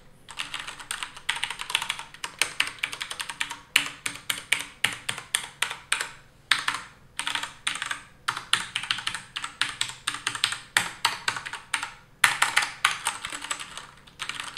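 Max Keyboard Nighthawk X8 mechanical keyboard with Cherry MX Brown switches being typed on quickly: fast runs of keystrokes broken by a few short pauses.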